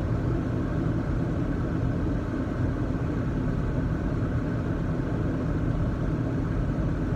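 Steady cabin noise of a car driving: engine and tyres running on a snow-covered road, an even low rumble with a hiss above it.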